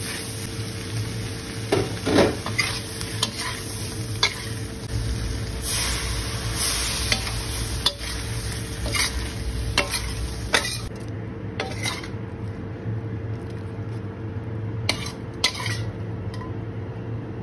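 Metal spatula scraping and knocking against a metal wok as shrimp are stir-fried, over a steady sizzle. The sizzle grows louder for a couple of seconds around six seconds in, then drops away about eleven seconds in, leaving a few scrapes and clinks.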